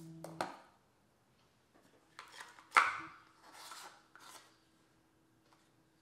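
Stainless measuring spoon scraping and tapping against a tea tin and a mesh infuser, with dry loose-leaf green tea rustling as it is tipped in. A short run of handling knocks and rustles about two to four seconds in, the sharpest knock near the three-second mark.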